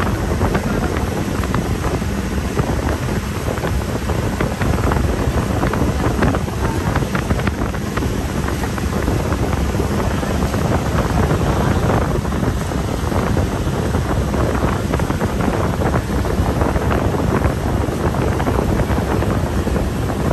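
Strong wind buffeting the microphone, with a steady low rumble underneath.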